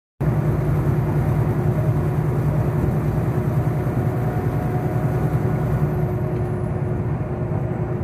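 Steady drone inside a semi-truck's cab at highway speed: the diesel engine and the tyres on the road make a deep, even rumble with a faint steady hum above it.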